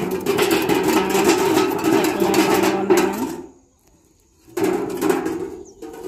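Homemade tin-can bird scarer clanking: metal spoons tied inside empty cans rattle against the tin as it is shaken, a dense continuous clatter. It breaks off for about a second midway, then starts again.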